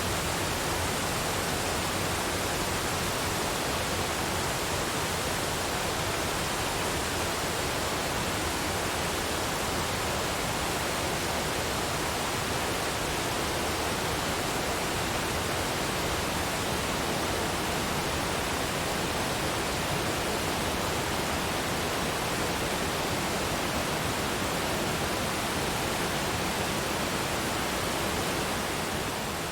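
Waterfall running with a steady, even rush of falling water, easing slightly just before the end.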